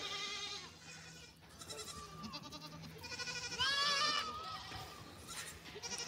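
Goats bleating, a few short calls, faint, the clearest about four seconds in.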